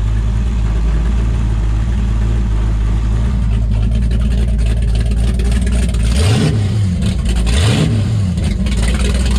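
509 cubic inch big-block Chevy V8 in a Progression race boat, idling steadily, then revved twice in quick succession about six and seven and a half seconds in, each rev rising and dropping back.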